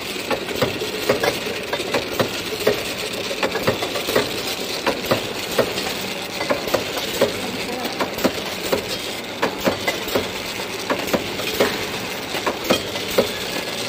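Automatic labeling machine running: a steady mechanical hum from its conveyor and drive, with frequent short, uneven clicks and knocks as glass jars pass along the slat-chain conveyor through the labeling station.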